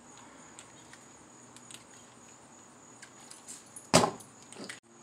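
FLYHAL FC600 RC truck chassis set down on a table with one sharp thump about four seconds in, after a few light clicks as it is handled. A steady high insect chirr runs behind.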